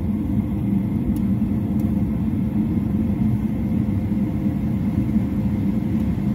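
Goodman two-stage high-efficiency propane furnace running on low fire: its burners, inducer and blower make a steady low rumble.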